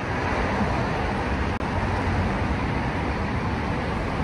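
Steady rushing ambient noise, with a brief dropout about a second and a half in.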